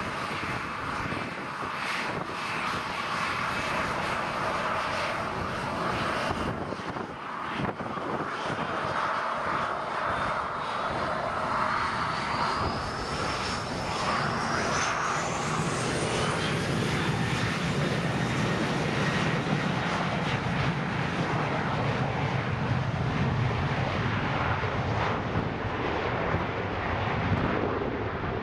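Ryanair Boeing 737's jet engines running with a steady rush as it taxis. About halfway through, a whine rises in pitch and a deeper rumble builds: the engines spooling up as thrust is applied at the start of the take-off.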